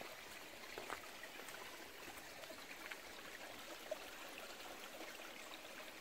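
Shallow mountain stream trickling over stones: a faint, steady babble of running water with a few small ticks.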